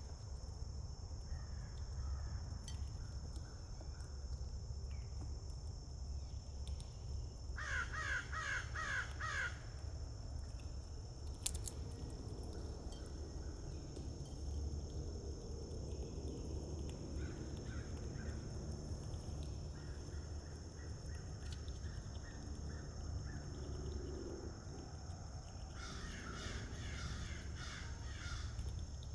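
A bird calling in two runs of rapidly repeated notes, one about eight seconds in and a longer one near the end, over a steady high insect drone and a low rumble. A single sharp click is heard a little after the first run.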